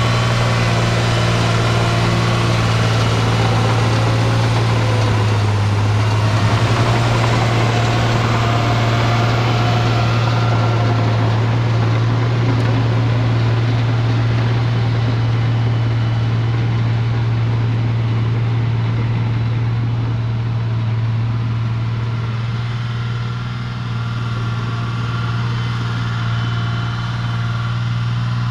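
Caterpillar D3C LGP crawler dozer's diesel engine running steadily as the machine drives away; from about ten seconds in the sound grows duller and a little quieter as it gets farther off.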